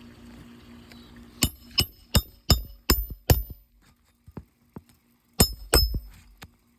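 Hammer striking a roof snake to drive a roofing nail under a shingle: six quick ringing metallic blows about a third of a second apart, a few light taps, then two more blows.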